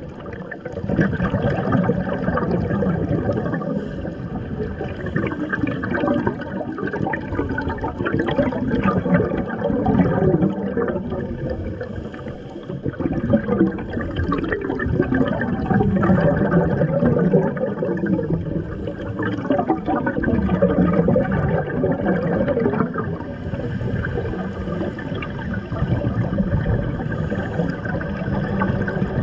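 Underwater audio on a scuba dive: divers' exhaled regulator bubbles rushing and gurgling past the camera over a steady water noise. It swells and eases every few seconds.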